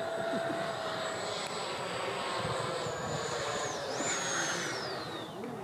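Electric ducted fan of an FMS F-16 RC jet (80 mm EDF) whining high over a rushing of air. The whine steps down slightly about three seconds in, dips and recovers around four seconds, then glides steadily lower in pitch toward the end.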